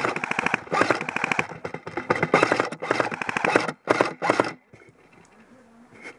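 Several airsoft guns firing rapid full-auto bursts, laying down suppressive fire. The firing stops suddenly about four and a half seconds in.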